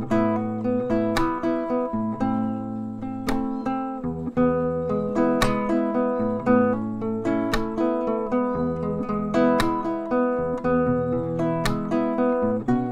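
Classical guitar played fingerstyle: a picked melody over bass notes, with sharp plucked chord accents every second or two.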